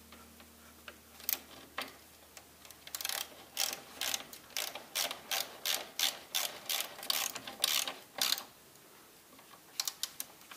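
Hand ratchet wrench clicking in quick, even strokes for about five seconds, with a few separate clicks before and near the end. It is driving in a bolt of a new lower rear engine mount on an Opel Astra G.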